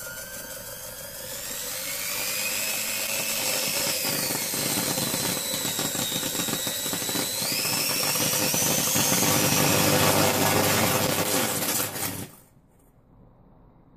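A hand mixer's small brushed universal motor, fed directly through its brushes from a step-up transformer, runs at overspeed with a loud high whine over a rough noise. The whine wanders and climbs in pitch and grows louder, then cuts off suddenly about twelve seconds in as the overdriven motor burns out in a burst of flame and sparks.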